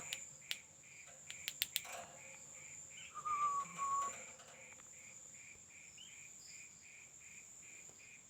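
Cricket chirping in a steady pulse, about two or three chirps a second, over a constant high whine. A few sharp clicks come in the first two seconds, and a short whistled note, falling slightly, about three seconds in.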